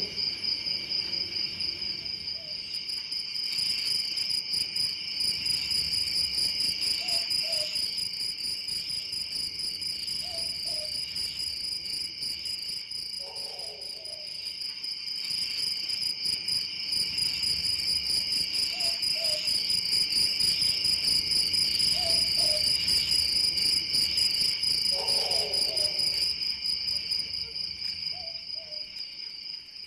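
Crickets chirping in a steady, high, pulsing trill, with a short low hoot every few seconds: a night-time ambience sound effect for a stage scene.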